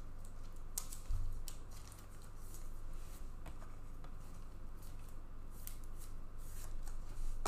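Trading cards and their packaging being handled: a string of short, crisp clicks and scrapes at irregular intervals.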